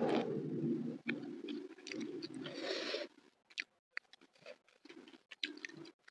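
Close-up chewing of crispy fried fish and rice, with small crunches and wet mouth sounds for about the first three seconds. After that it goes almost quiet, with a few short faint clicks.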